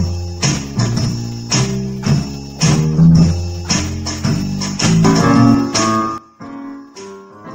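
Electronic keyboard playing a tune over a steady beat, with low bass notes and a bright tambourine-like tick about twice a second. About six seconds in it breaks off into quieter, sparser music.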